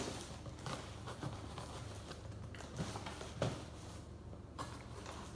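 A knife slits the packing tape and cardboard flaps of a shipping box, giving a few faint, short scrapes and taps with pauses between them.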